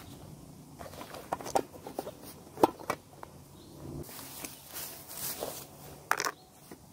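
Camping kit being handled by hand: a string of light clicks and knocks, the sharpest about two and a half seconds in, then canvas rustling and one more brief knock near the end as a bowl is set down on a flat stone.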